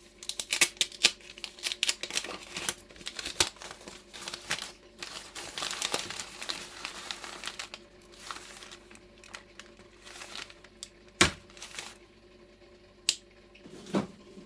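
Crinkling and rustling of something being handled, with many small clicks, dense for about the first half. It then thins to scattered taps and a few sharp knocks near the end.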